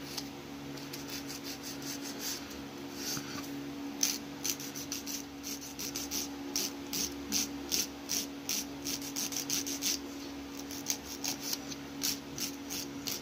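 A nail file rasping on an acrylic fingernail in short, quick strokes, about two or three a second, louder from about four seconds in, over a steady low hum.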